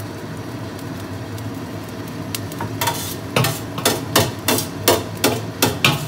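A metal ladle rapping about nine times on the rim of a stainless steel pot, roughly three sharp ringing knocks a second, starting about halfway through. Under it is a steady low hum.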